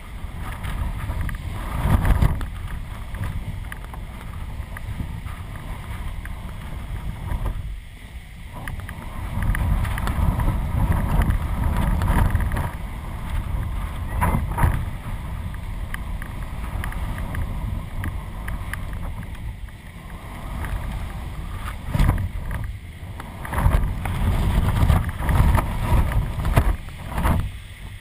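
Strong gusty wind buffeting a camera microphone mounted on a flying kite, rumbling and surging with each gust, with a few sharp snaps now and then.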